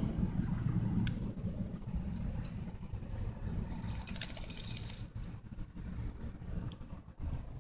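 A dog's collar hardware jingles briefly about four seconds in as the dog moves, over a low steady rumble.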